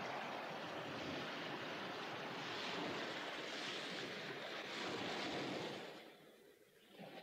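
Surf and wind sound effect: a steady rushing noise that swells and ebbs, fading away about six seconds in.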